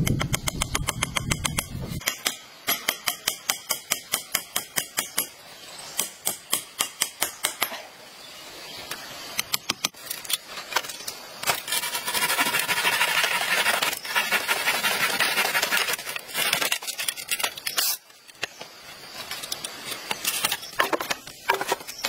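Machete blows on green bamboo: runs of quick chopping strikes, about four a second, with a few seconds of continuous rasping around the middle.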